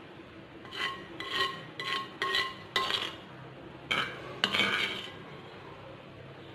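A steel spoon stirring thickened milk in a wide clay pot, scraping against the earthenware in about five quick strokes, then two more a little later before it stops.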